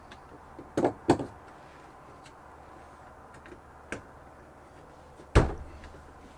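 A few knocks and clunks of handling during the installation work, two close together about a second in and the loudest a heavy thump near the end, over a low steady hum.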